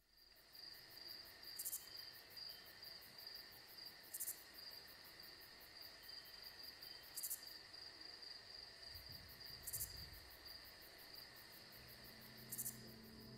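Crickets chirping in a steady, fast-pulsing high trill, with a louder, higher burst of call five times, every two and a half to three seconds; a recorded night-time insect soundscape played as part of the show's sound score.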